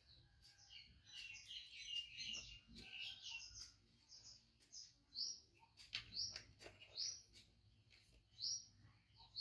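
Faint songbirds chirping: a busy tangle of high twittering at first, then one bird repeating a short high call about once a second. A few sharp clicks are heard among the calls.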